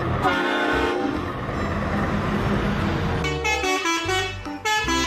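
Truck horns sounding: a held horn note just after the start, a stretch of engine and road noise, then from about three seconds in a series of horn notes that step up and down in pitch.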